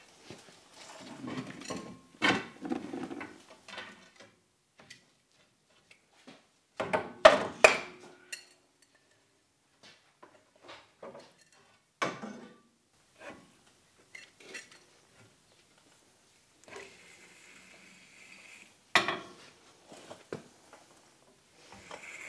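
Intermittent metal clanks, knocks and scrapes of a steel pry bar working a Ford Super Duty's front axle shaft and seal loose from the axle tube, and of the shaft being pulled out. The loudest clanks come in a cluster about a third of the way in, with single sharp knocks later and quiet gaps between.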